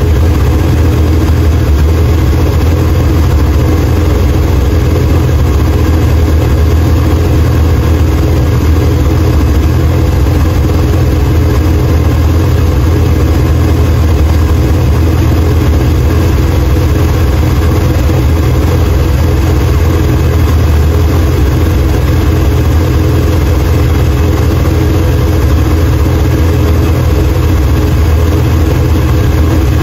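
The 454 big-block Chevrolet V8 of a 1968 Impala, fitted with a Thumpr camshaft, idling steadily and loudly, running again after new head gaskets.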